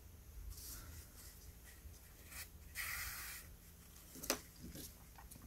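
Faint rustling of yarn drawn through crocheted stitches with a darning needle while weaving in an end, with a longer swish about three seconds in as the strand is pulled through and a sharp click a little after four seconds.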